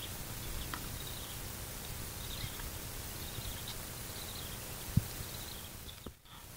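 Outdoor ambience: a steady hiss with faint high chirping, a single low thump about five seconds in, and a brief drop-out near the end.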